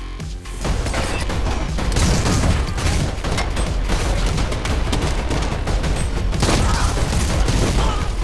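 Film soundtrack of a shotgun firing incendiary Dragon's Breath rounds in quick succession, with gunfire and impacts, over a driving electronic score. The shooting starts about a second in.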